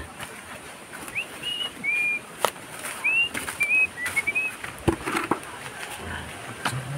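A string of clear, high whistled notes, some held and some sliding upward, with a few sharp knocks in between.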